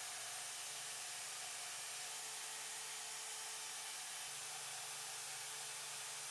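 Bandsaw with a coarse blade running and cutting through oak, heard as a quiet, steady hiss with a low hum that shifts slightly about two seconds and four seconds in.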